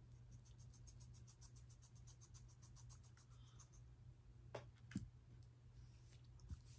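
Faint, quick run of scissor snips cutting layers into a long wavy wig, about eight a second, then two sharper clicks about half a second apart.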